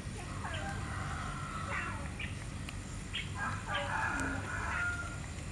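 Domestic chickens clucking in two bouts of short calls, one starting about half a second in and another about three seconds in, over a steady low background noise.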